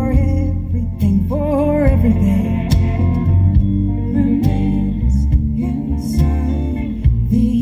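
A folk band playing live: a singing voice over guitars, upright bass and fiddle.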